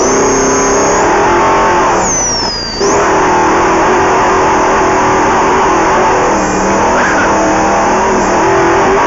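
Off-road race vehicle's engine running hard at speed, heard from the cockpit over a haze of wind and terrain noise; the engine note dips briefly about two and a half seconds in, then picks back up.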